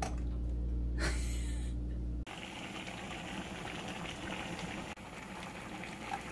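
A pot of gamjatang (pork-bone stew) bubbling at the boil, starting suddenly about two seconds in. Before that there is a steady low hum.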